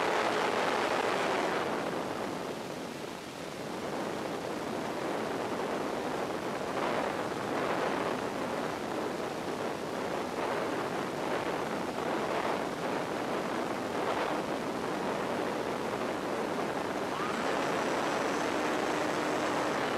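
Steady rushing hiss with no motor tone on the RC plane's FPV audio, swelling faintly a few times. About three seconds before the end, the plane's motor whine comes back in.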